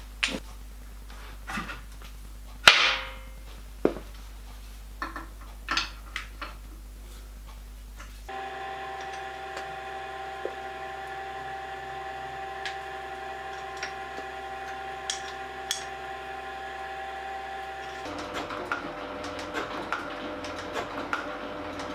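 Metal tools knocking and clanking, with one loud clang, then a metal shaping machine running steadily with its motor and drive humming. Near the end the sound changes to a busier clatter of repeated ticks as the shaper works, taking cuts in a cast iron plate.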